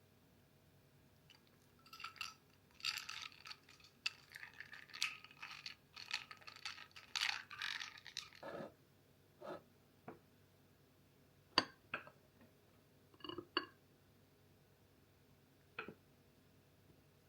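Tableware being handled: several seconds of crackly scraping and rustling, then a handful of separate sharp clinks of dishes or cutlery.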